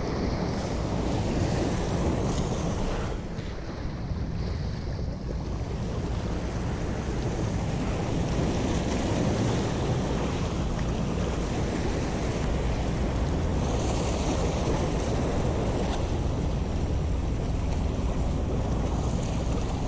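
Wind buffeting the microphone over small waves washing and breaking against the rocks of a breakwater, a steady rush with no distinct events.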